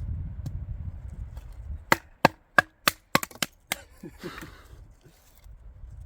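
Firewood being broken up: a quick series of about eight sharp wooden cracks and knocks in under two seconds, after a low rumble.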